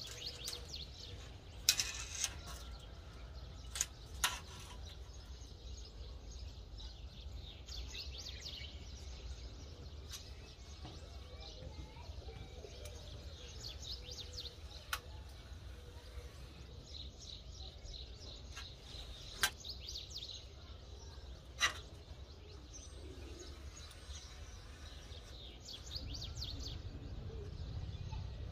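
Small birds chirping off and on, with a few sharp clicks scattered through, over a steady low rumble.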